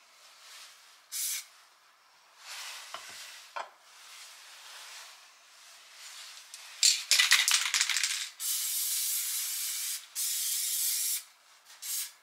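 Aerosol spray-paint can hissing in bursts, short ones early on, then two long steady sprays in the second half. Just before the long sprays comes about a second of quick rattling clicks as the can is shaken.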